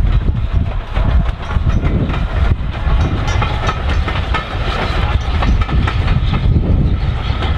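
Steam train passing close by: the M7 tank locomotive 30053 and its coaches, wheels clicking rapidly over the rail joints, with wind rumbling on the microphone.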